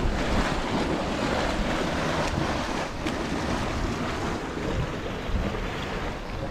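Steady rushing noise of steam venting from the fumaroles and boiling pools of a volcanic field, with wind buffeting the microphone.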